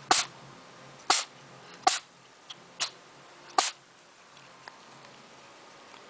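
A cat sneezing five times in a row, short sharp sneezes a little under a second apart, the fourth one weaker.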